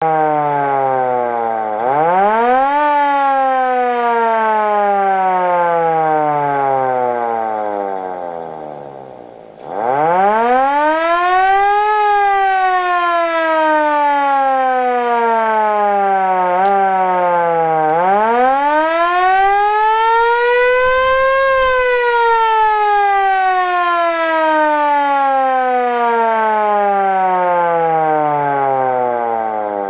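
Old police car siren wailing in long slow cycles. Each cycle climbs quickly to a peak, then slides down gradually over several seconds. This happens three times, and the sound dips in loudness near the end of the first fall before winding up again.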